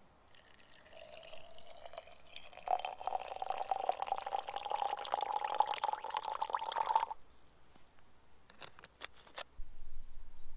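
Water poured from a plastic bottle into a glass jar of chopped chestnut pieces, its tone rising as the jar fills, stopping about seven seconds in. A few light clicks follow.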